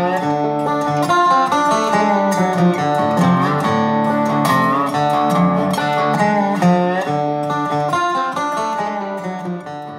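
Instrumental outro music led by guitar, with sliding bent notes, getting quieter near the end.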